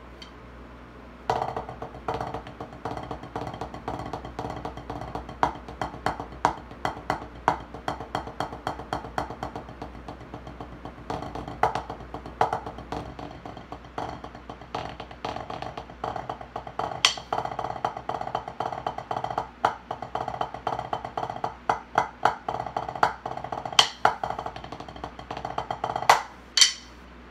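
Drumsticks playing fast, continuous strokes on a drum practice pad, with a few louder accented hits. It starts about a second in and stops just before the end.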